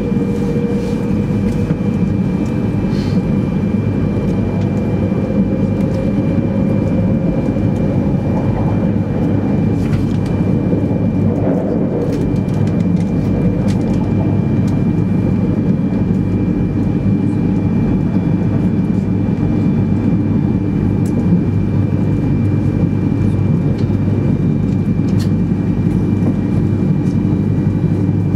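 Interior running noise of a 200 series Shinkansen at speed, heard inside the passenger cabin: a steady, loud rumble of wheels and motors. A faint tone rises slowly over the first several seconds, and a few faint clicks come through now and then.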